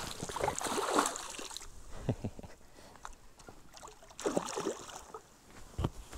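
Water splashing and sloshing against a small boat in irregular bursts, with a couple of short knocks.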